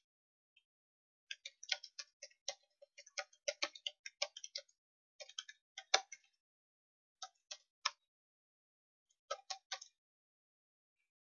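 Computer keyboard typing: quick runs of key clicks separated by short pauses, with one louder keystroke about six seconds in.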